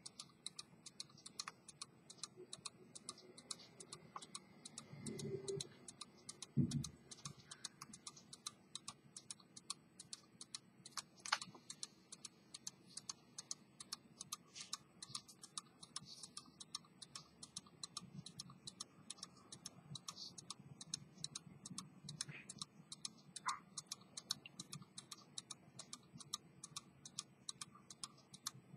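Faint, rapid, even ticking of a running watch, with soft handling knocks from the silver watch case about five to seven seconds in.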